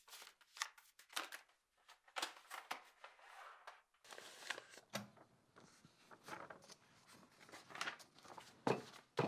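Loose sheets of manuscript paper rustling and being shuffled: a string of quick crisp rustles, with a couple of soft low thumps in the second half.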